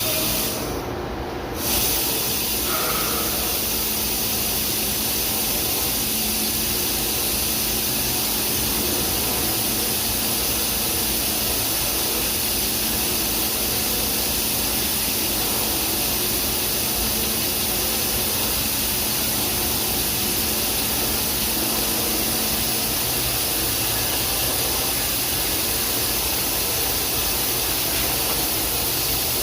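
Daito DNF-1050 CNC beam drill line running: a steady hissing machine noise with a low hum underneath that drops away about 23 seconds in.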